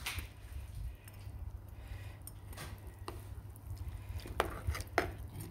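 Kitchen handling noise around a metal cooking pan: a few scattered light clicks and knocks, the last two about a second in from the end, over a low steady rumble.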